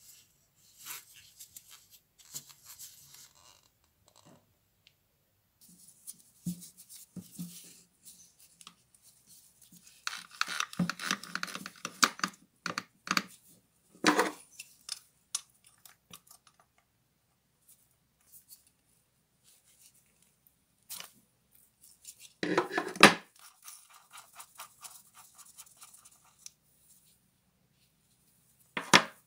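Metal parts of a rusty angle grinder gear head being worked apart by hand: scraping, clicking and clattering in scattered bursts, with a long run of scraping about halfway through, the loudest clatter about two-thirds of the way in, and a sharp knock near the end.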